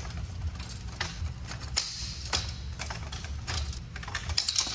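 Aluminium bimini top bows clicking and clattering against the frame as their spring-button fittings are pushed in and the bows are slid into position. The clicks are irregular, with a quick cluster near the end, over a steady low hum.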